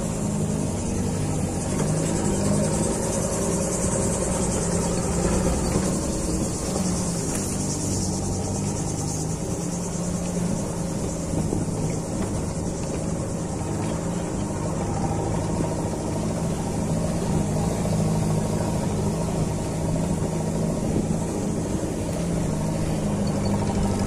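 Car engine running and tyre noise heard from inside the cabin, as the car drives on a rough dirt road at a steady, even level.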